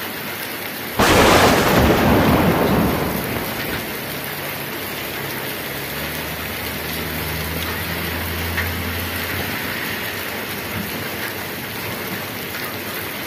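Heavy rain falling steadily on wet pavement. About a second in, a sudden loud thunderclap rumbles and fades away over the next two to three seconds.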